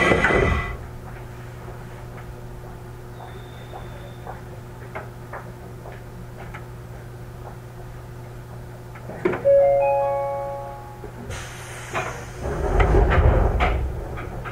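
A stopped JR East 205 series electric train gives a steady low electrical hum, with scattered faint clicks; a loud noise cuts off within the first second. About nine seconds in, a single bell-like chime rings and fades over a second or so. Near the end, a louder rush of noise swells and dies down.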